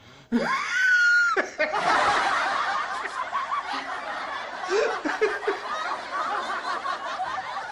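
A brief high-pitched squeal, then several seconds of laughter from many overlapping voices.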